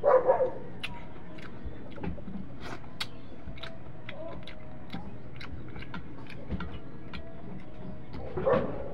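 A man eating grilled fish by hand: scattered small clicks and smacks of chewing and handling food. A brief, louder voice-like sound comes at the start and another near the end.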